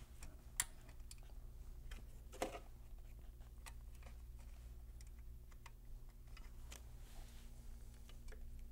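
Faint scattered clicks and taps of hands handling the battery strap and wiring in a scooter's battery compartment, with two sharper clicks about half a second and two and a half seconds in, over a steady low hum.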